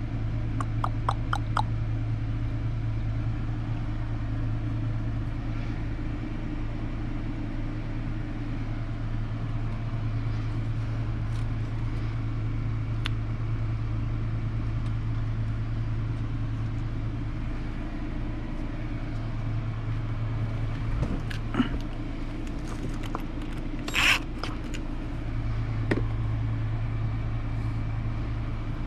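Small clicks and taps of hand tools and parts being worked loose from a radio-controlled truck over a steady low background hum. A quick run of ticks comes at the start, and one sharper clink late on is the loudest moment.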